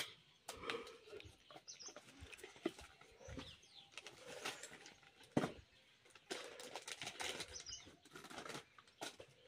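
Faint, scattered knocks and clinks of metal parts being handled, the loudest about five seconds in, with birds calling in the background.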